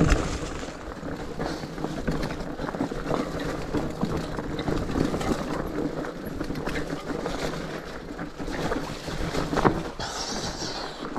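Rigid fat bike rolling down a rough dirt trail: steady tyre and wind noise with many small irregular knocks and rattles from the bike.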